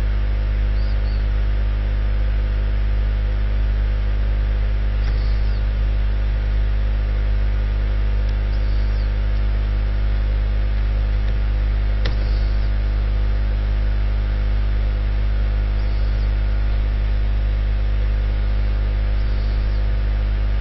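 Steady electrical mains hum on the recording line, a low hum with a buzzy stack of higher tones above it, unchanging throughout. A few faint, short clicks sit on top of it.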